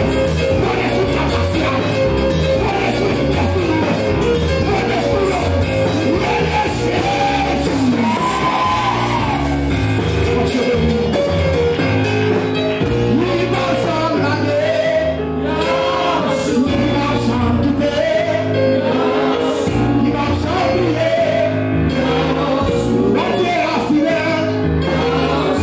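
Loud, continuous Pentecostal worship music with a steady bass line, voices singing over it and shouts from the congregation.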